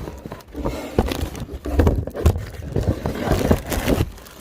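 Packaging and an amplifier in its bag being handled: irregular rustling and scraping with many small clicks and knocks.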